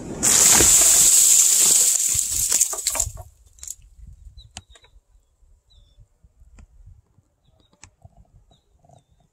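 A cut tree limb falling and crashing through the branches to the ground: a loud rushing crackle of breaking twigs for about three seconds, then it stops suddenly.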